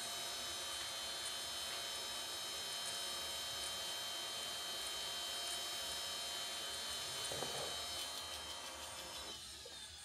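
Small RC jet turbine engine spinning with a steady whirring whine, which fades and falls in pitch near the end as it winds down. The start attempt is troubled by air bubbles in the fuel system.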